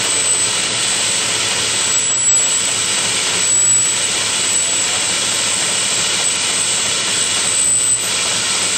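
1904 steam fire engine pumping, giving a steady, loud rushing hiss of steam and exhaust.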